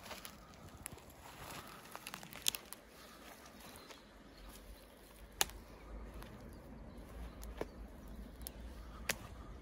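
Footsteps through dry grass, moss and twigs on a forest floor, rustling, with a few sharp twig snaps. A low rumble comes in about halfway through.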